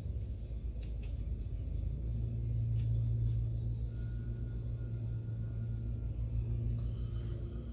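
A steady low mechanical hum, like a motor or appliance running, that grows louder about two seconds in, with a few faint clicks of small metal parts being handled.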